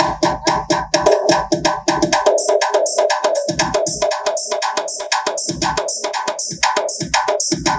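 Music with a fast, driving drum and percussion beat.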